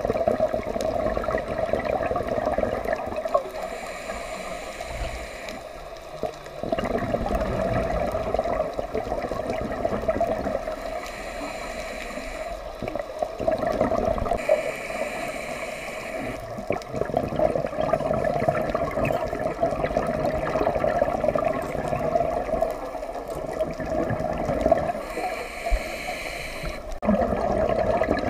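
Scuba regulator breathing heard underwater: a hissing inhale every few seconds alternating with the rushing, gurgling bubbles of the exhale.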